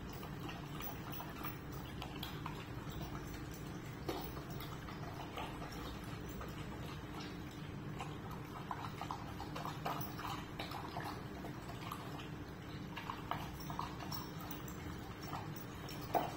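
A dog eating wet food from a ceramic bowl: irregular small clicks and smacks of chewing and lapping, over a steady low hum.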